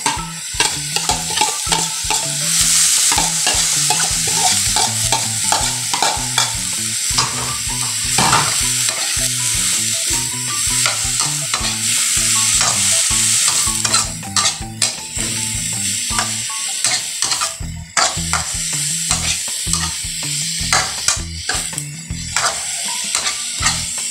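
Shredded cabbage sizzling in hot oil in a wok, loudest a few seconds in just after it goes into the pan. A spatula stirs and tosses it, scraping and tapping against the pan throughout, as the cabbage is sautéed to soften.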